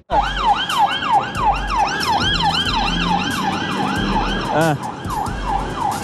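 Police car siren in a fast yelp, its pitch sweeping up and down about three to four times a second, with a brief faster warble a little over four seconds in before the yelp resumes.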